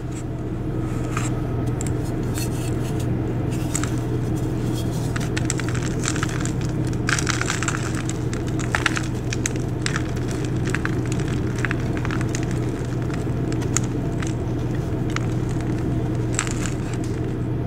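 Flower-shaped blocks of pale blue gym chalk being crushed and crumbled by hand: many short crunches and crackles of chalk breaking and powder grinding, sparse at first and denser from about five seconds in, over a steady low hum.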